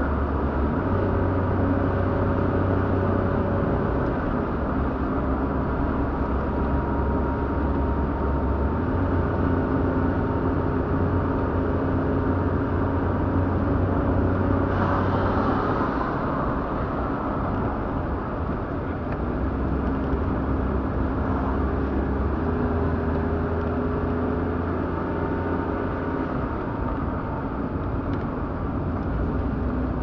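Car engine and road noise heard from inside the cabin while driving: a steady low rumble with the engine note stepping up and down several times as speed changes, and a brief rush of noise about halfway through.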